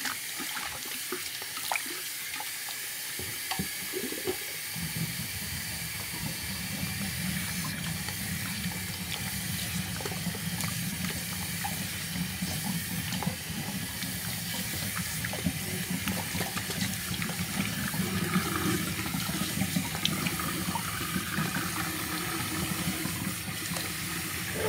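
Water running steadily while a cat is washed and rinsed during its bath, growing fuller about five seconds in.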